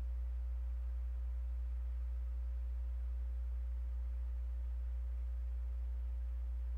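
Steady low electrical hum with a faint higher steady tone above it, unchanging throughout; nothing else happens.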